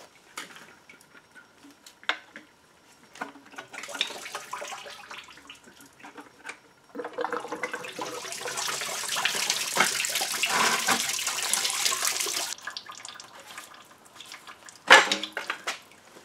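Scattered metal clicks and taps, then engine coolant rushing and splashing out of the Audi 2.8 V6 as the water pump housing is pulled free. The rush lasts about five seconds and stops abruptly, and a sharp knock follows near the end.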